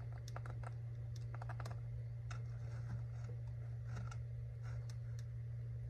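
Scattered light clicks and taps of a vinyl strip being handled and lined up in a straight-line cutter, over a steady low hum.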